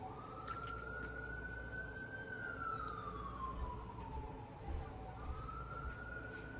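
Faint emergency vehicle siren wailing, its pitch slowly rising and falling: one full rise and fall, then a second rise starting near the end.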